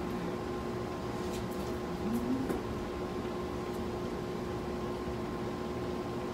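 Steady machine hum with several steady tones, like a room appliance running, with a few faint crackles of crispy fried-chicken breading being pulled apart about one to two seconds in.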